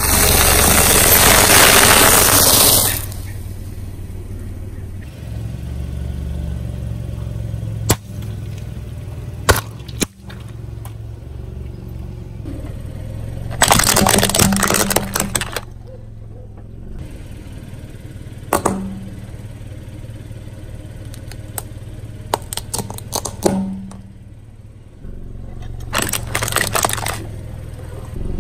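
A car tyre rolls slowly over objects and crushes them. First comes a long, loud crunch lasting a few seconds, then scattered sharp cracks. Plastic toy cars then crack and snap under the tyre in several bursts in the middle and near the end, over the car's engine running low and steady.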